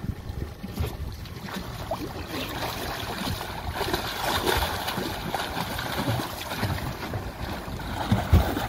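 Wind buffeting the microphone over sea water sloshing and splashing around a boat's hull, in uneven gusts.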